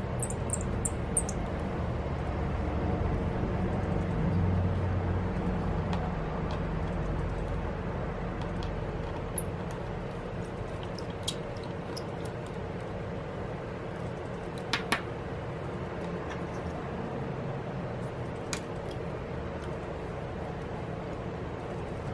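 Steady low room hum with a faint steady tone, under a scattering of small sharp clicks from a precision screwdriver and tiny screws as the flex cable bracket screws come out of an iPad Pro. A quick double click about two-thirds through is the loudest.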